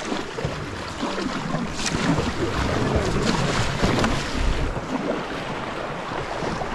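Kayak paddle strokes splashing into the water, over the steady rush of a fast-flowing river around the hull, with several distinct splashes in the first few seconds.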